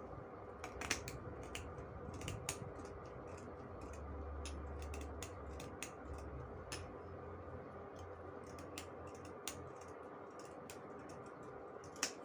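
Scissors cutting through several layers of folded fabric: a run of short, irregularly spaced snips as the blades close.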